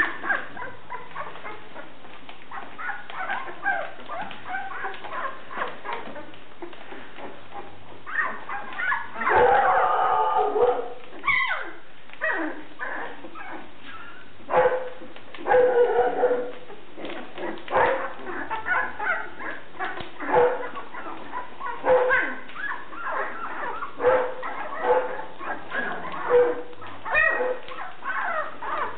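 A litter of young Briard puppies crying, with many short high calls. There is a louder run of crying about nine to eleven seconds in, and after that short calls come roughly once a second.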